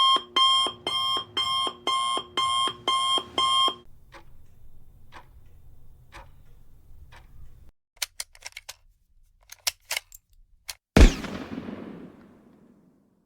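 A string of separate sound effects: an electronic alarm clock beeping, about two beeps a second, stopping about four seconds in; then faint regular ticking and a few quick sharp clicks; then one loud hit with a long fading tail about eleven seconds in.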